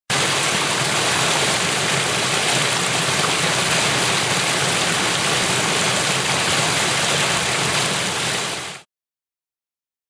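Small stream waterfall pouring over a granite ledge: a steady rush of water that fades out quickly near the end.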